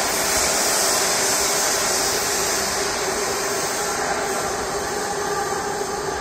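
Metro train running in the tunnel: a steady rumble with a bright hiss, slowly getting quieter.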